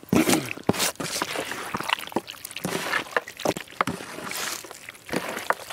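Wet squelching and sloshing of mutton being worked by hand in its masala marinade, with irregular clicks and knocks.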